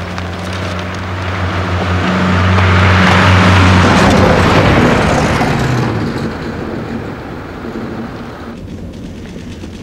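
A motor vehicle driving past: the engine hum and tyre noise grow louder, peak about three to four seconds in as it passes, then fade away as it moves off.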